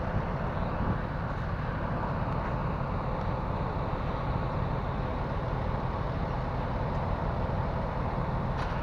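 Semi truck's diesel engine idling: a steady low rumble.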